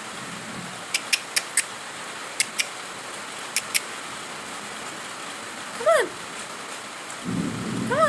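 Heavy monsoon rain falling steadily. A few sharp clicks, in pairs, come in the first four seconds, and two short falling calls come toward the end, about two seconds apart.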